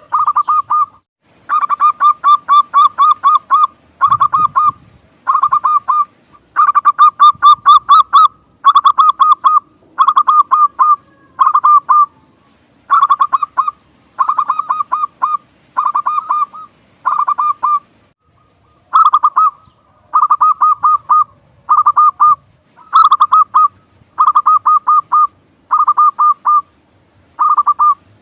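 Zebra dove (perkutut) cooing song: short phrases of quick, stuttering notes repeated over and over with brief pauses between them.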